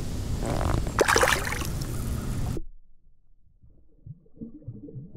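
Water splashing and sloshing beside a kayak, with a sharp splash about a second in as a released bass goes back into the lake. The sound then cuts off abruptly to a much quieter, muffled low rumble.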